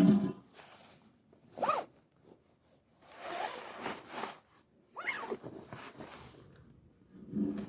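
A zipper being pulled, two quick zips that rise in pitch about three seconds apart, after a dull thump at the start and amid handling and rustling of gear.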